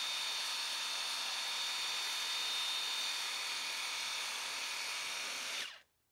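Hand-pump pressure sprayer's wand hissing steadily as it sprays a mist of degreaser, stopping abruptly near the end.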